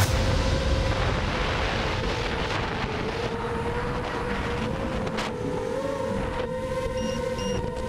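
Racing quadcopter's brushless motors and propellers whining at a steady pitch that wavers slightly with throttle changes, over a rush of wind on the onboard camera's microphone.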